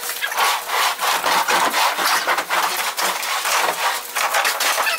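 Tall plywood shipping crate being pushed and walked across the floor, its wooden base scraping and grinding on the floor in a rough run of uneven strokes.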